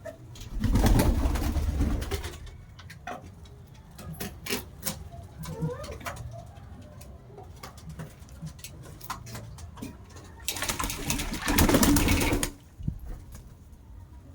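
Pigeons cooing softly, with two loud bursts of wing-flapping and splashing as pigeons bathe in water, one about a second in and a longer one near the end, and scattered small clicks and taps between them.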